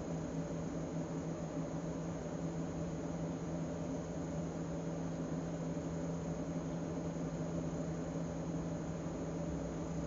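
Steady low hum with an even hiss behind it, unchanging throughout, like a fan or other running appliance in the room.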